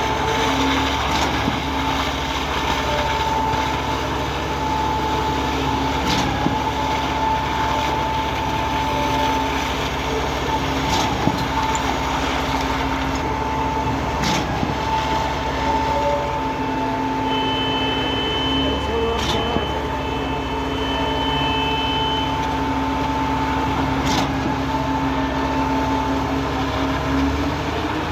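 Truck-mounted Cifa K42L concrete pump running steadily, its engine giving a constant drone with a sharp knock about every five seconds. A brief high-pitched tone sounds near the middle.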